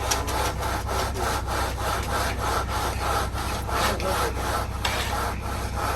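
Wooden screed board being sawed back and forth across wet concrete, a fast, even run of rasping scrapes, about three strokes a second, to strike the slab off level. A steady low hum runs underneath.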